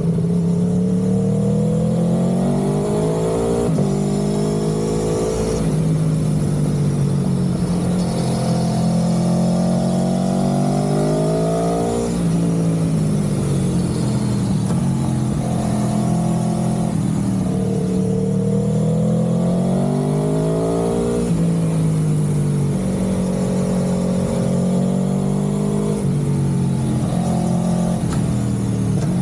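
A road vehicle's engine being driven. Its pitch climbs and then falls back sharply several times, as under acceleration and gear changes, over a steady low road rumble.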